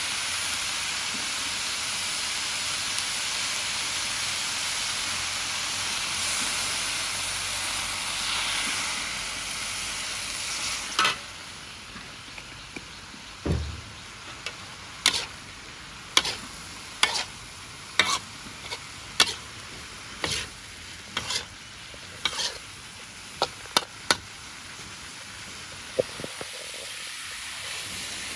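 Pickled mustard greens and pork belly sizzling in a wok with a steady hiss. About ten seconds in the hiss drops, and from then on a metal spatula scrapes and knocks against the wok roughly once a second as the food is stirred.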